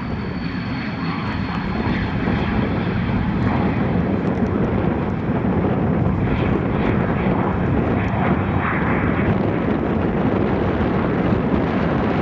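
Airplane engine running at high power, growing louder over the first two seconds and then holding steady and loud.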